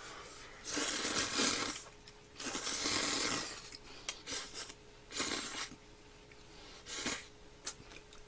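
Curry ramen noodles being slurped from chopsticks: two long slurps of about a second each, then two shorter ones, with light clicks of chopsticks between them.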